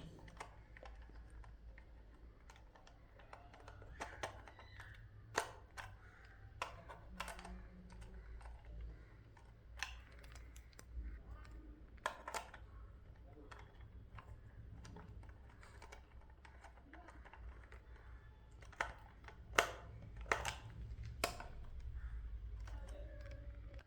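Irregular small clicks and taps of a screwdriver and wire ends being worked into the screw terminals of a solar charge controller, with a few sharper clicks near the end, over a low steady rumble.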